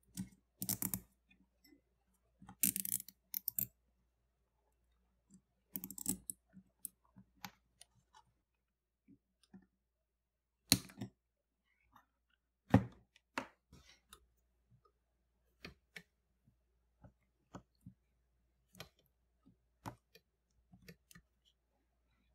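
Hands handling electrical wires and plug connectors: scattered clicks and rustling, with two sharper clicks about eleven and thirteen seconds in.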